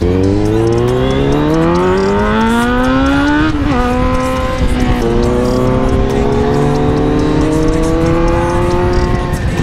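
Sport motorcycle engine accelerating hard, its pitch climbing steadily, dropping at an upshift about three and a half seconds in, then climbing again through the next gear.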